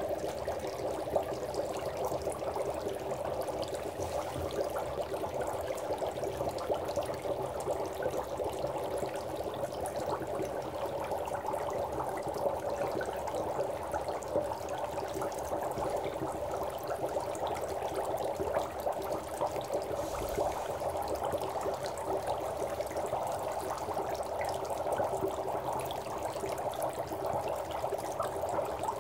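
Dry ice (solid CO2) bubbling in a sink full of water, a steady dense bubbling as the gas escapes.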